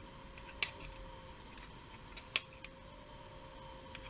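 Clear plastic fork and spoon clicking against each other as they are handled: about five sharp little clicks, the loudest a little past two seconds in.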